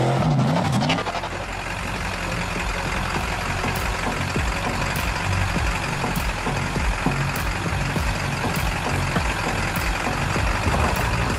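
A rock bouncer buggy's engine revs, its pitch sliding up and down, until about a second in. Then a lifted Ford full-size pickup's engine runs steadily with a low hum while the truck sits on trail rocks.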